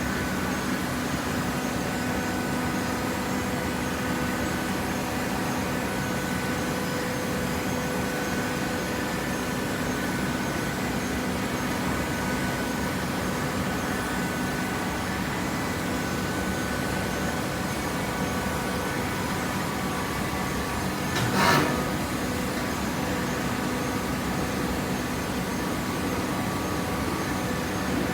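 Waste paper baler's hydraulic power unit running steadily with a constant hum and whine. About three quarters of the way through there is one short, loud knock or clatter.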